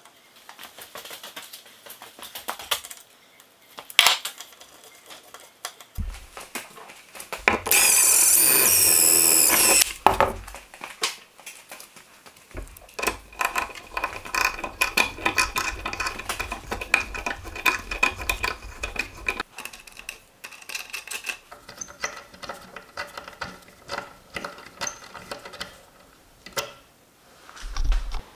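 Metalworking at a bench on aluminium brackets and a steel table edge: repeated clicks, taps and clatter of metal parts and hand tools. A power tool runs loudly and steadily for about two seconds, and later a quieter steady hum runs for several seconds.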